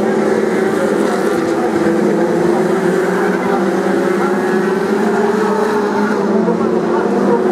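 BriSCA F2 stock cars racing round the oval, their engines giving a loud, steady drone with little change in pitch.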